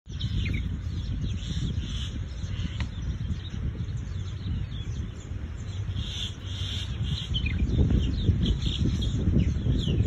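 Small songbirds chirping and twittering in many short, high calls, over a low rumble that grows louder in the last couple of seconds.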